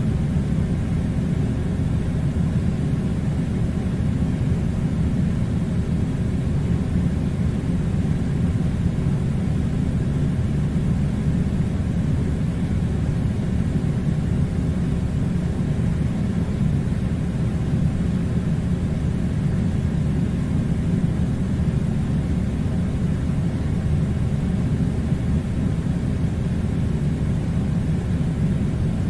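Steady low rumble of an air conditioner running, an even noise with no change throughout.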